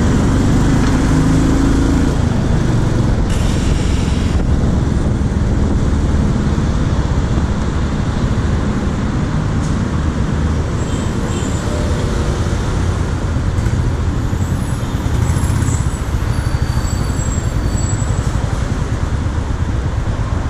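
Royal Enfield Classic 350's single-cylinder four-stroke engine running at low speed amid surrounding road traffic and wind noise. A brief hiss comes about three seconds in.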